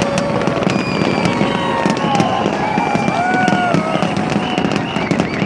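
A fireworks display going off without pause: a steady din of bursts with dense crackling, and short high tones that rise and fall above it.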